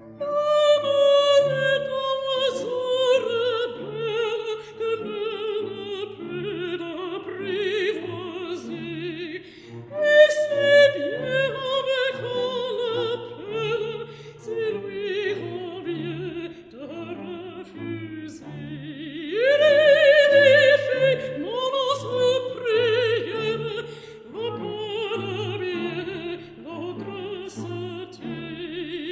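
Opera singing with orchestral accompaniment: a solo voice holding notes with vibrato, each phrase starting high and falling, with new phrases beginning at the start, about ten seconds in and about twenty seconds in.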